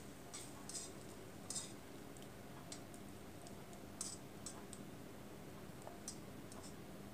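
Faint, irregular clicks from metal tongs against a wok as egg-dipped bread slices are turned, over the light sizzle of the shallow frying oil.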